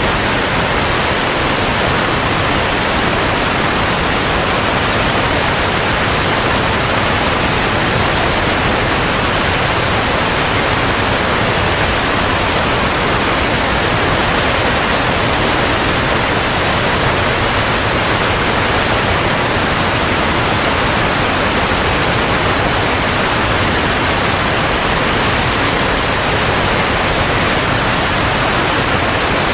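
Steady rushing water, an even hiss with no breaks or wave swells.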